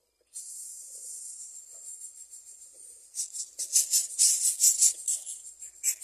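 Greater coucal nestling making a steady hiss, which about halfway through turns into fast, louder raspy begging calls as an adult brings it food.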